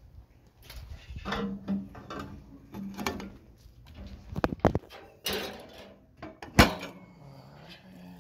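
A string of clanks, scrapes and knocks from handling the steel offset smoker and its firewood while tending the fire, with one sharp, loud knock about six and a half seconds in.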